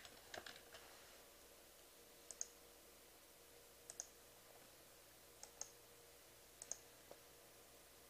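Faint computer keyboard and mouse clicks: a few last keystrokes in the first second, then four quiet mouse clicks, each a quick press-and-release pair, spaced a second or more apart.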